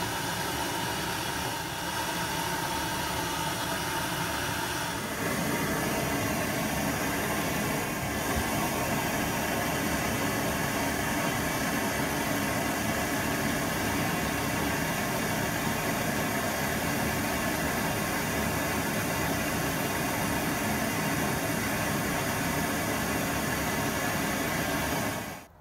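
Steady mechanical hum and hiss, like a machine running without a break, that changes slightly about five seconds in.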